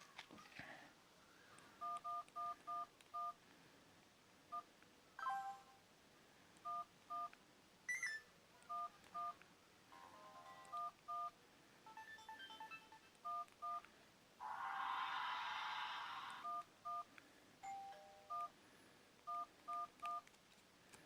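Sony Ericsson K810i ringtone playing from the phone's speaker, built from short dual-tone telephone keypad beeps in an uneven rhythm. Electronic effects are mixed in: a sliding tone, a brief high whistle and a loud burst of hiss about two-thirds of the way through.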